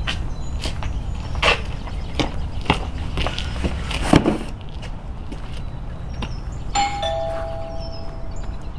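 Short knocks like footsteps on concrete, then a cardboard box set down with a thump about four seconds in, over a steady low outdoor rumble. Near the end a two-tone ding-dong doorbell chime rings once and fades.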